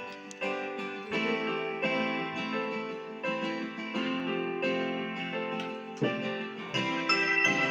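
Background music led by a plucked, strummed guitar, its chords changing in a steady rhythm.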